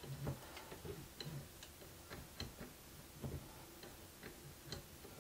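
Faint, irregular small clicks and ticks, about two a second, with a few soft low knocks, as hands work the Ender 3 V2 3D printer's X-axis gantry and Z rod.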